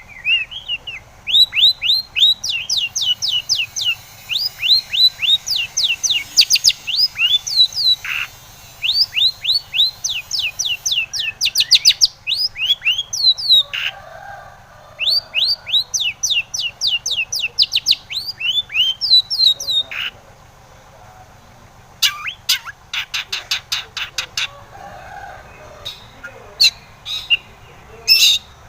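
Long-tailed shrike (cendet) singing: long runs of quick, sharp sweeping notes, several a second, in phrases separated by short breaks.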